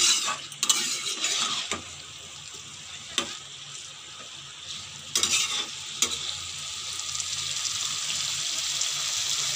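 A spatula scrapes and stirs pointed gourd pieces through a thick spice paste frying in a pan, with oil sizzling. There are scraping strokes in the first couple of seconds, another around three seconds in and a few more around five to six seconds in. After that a steady sizzle grows slightly louder toward the end.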